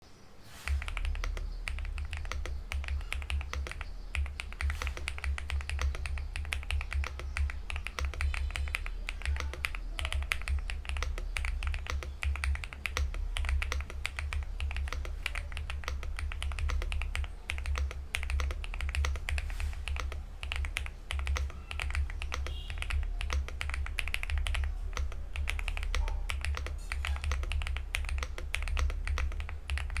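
Fast, continuous typing on a Monka K75 75% gasket-mounted mechanical keyboard with plastic case and Sea Salt tactile switches, a dense stream of keystroke clacks starting about half a second in.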